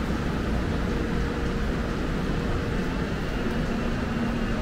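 Steady rumble and hiss of a busy subway platform, with a faint low electric hum that grows a little stronger near the end.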